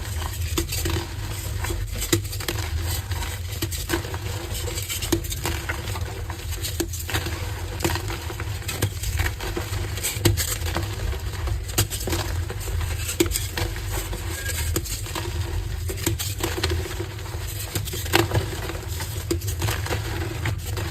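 Dry gym chalk blocks being broken and crumbled, giving an irregular run of crisp crunches and snaps, with a steady low hum underneath.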